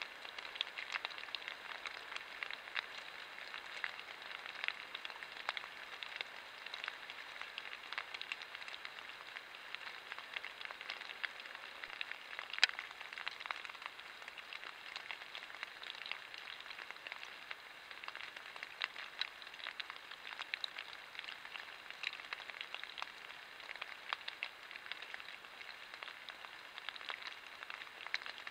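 Water drops pattering on leaves and forest litter: many small irregular ticks over a faint steady hiss, with one sharper tick near the middle.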